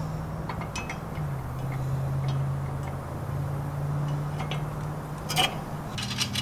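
Scattered light clicks and clinks over a steady low hum. The hum's pitch drops about a second in and rises again near the end.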